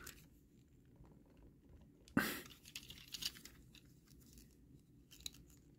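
Plastic parts of a Transformers Legacy Dead End action figure clicking and rattling faintly as hands press them together, trying to seat a part. Sparse small clicks, with one louder handling noise about two seconds in followed by a quick run of clicks.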